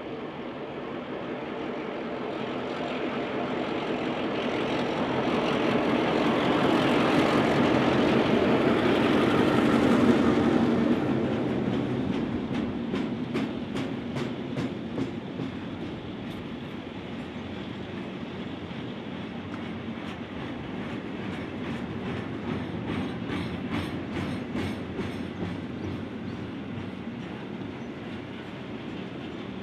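Victorian T and S class diesel-electric locomotives, with EMD 567 engines, running under load at the start of a climb, growing louder to a peak as they pass about ten seconds in. Loaded container wagons then roll by with a steady clickety-clack of wheels over rail joints.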